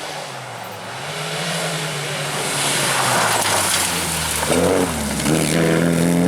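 Rally car engine coming closer at speed and getting steadily louder, with a rushing hiss as it nears. About four and a half seconds in, the engine note dips and climbs again.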